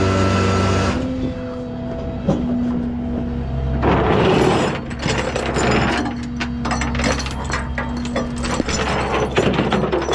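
Metal clanking and rattling with rubbing handling noise, as tow hook and chain gear is handled to hook up the load, over a truck engine idling steadily.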